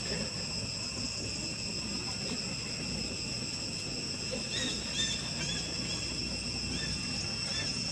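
Steady high-pitched drone of insects, with a few short high chirps over it in the second half.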